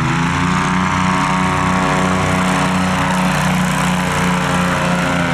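СМ-440 airboat's aero unit, engine and air propeller, running at high speed with one person aboard; the pitch rises slightly in the first half-second, then holds steady.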